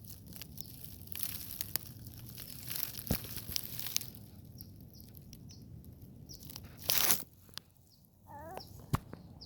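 Crunching and crackling of dry forest litter being handled: a run of small snaps, with a louder crunch about seven seconds in.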